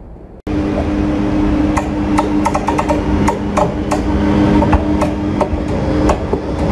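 ČD class 163 electric locomotive pulling its train slowly into the platform: a steady electric hum under wheel rumble, with irregular sharp clicks and knocks from the wheels over rail joints and points. It starts abruptly about half a second in, after a quieter rumble.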